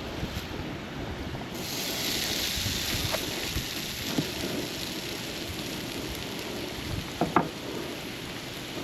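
Food sizzling in a hot pan, the hiss starting suddenly about one and a half seconds in, over wind rumbling on the microphone. A couple of short knocks come near the end.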